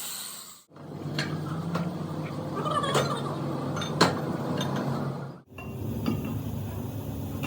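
Metal clinks and knocks, several short ones with a sharper knock about four seconds in, over a low steady hum. The sound drops out briefly twice.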